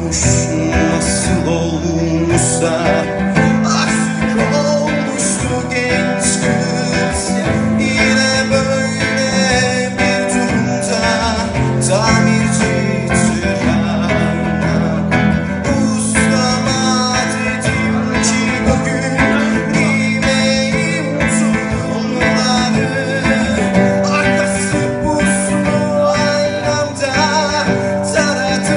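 Acoustic guitar strummed live, with a man singing along into a microphone.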